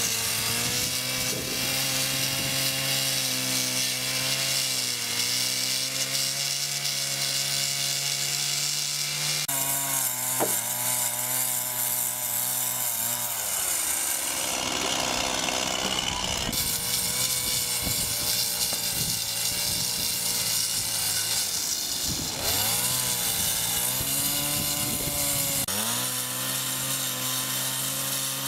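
Chainsaw cutting and carving a large wooden log. The engine holds a steady high note under load, then drops back and picks up again a few times between cuts.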